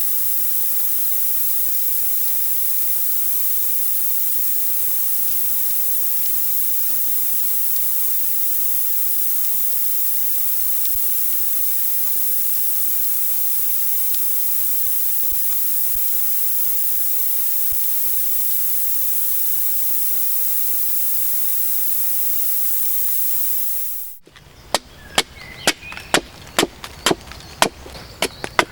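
A loud, steady hiss that cuts off suddenly about 24 seconds in. After it come sharp chopping strokes on wood, about two a second.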